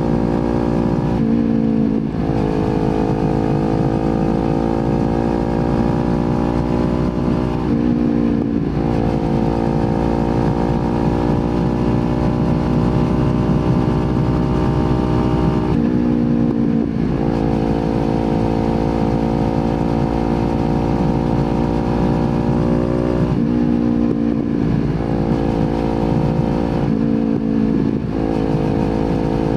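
Kawasaki Z250 parallel-twin engine running through an aftermarket slip-on exhaust under way, its pitch climbing slowly as it pulls. It is broken by five brief gear changes: about a second in, and near 8, 16, 23 and 27 seconds.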